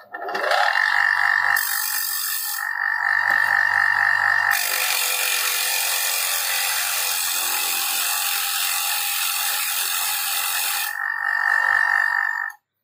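Bench grinder running with a wire wheel as the steel blade of a rusty masonry trowel is pressed against it, scouring off rust and dried cement. The motor's steady whine is joined about five seconds in by a louder, harsher scraping that eases near eleven seconds, and the sound stops abruptly just before the end.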